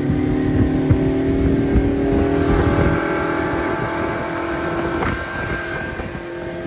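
Mercury 115 outboard motor running steadily at cruising speed, pushing an aluminium fishing boat, with water rushing off the hull. The engine note holds an even pitch and eases a little in loudness toward the end.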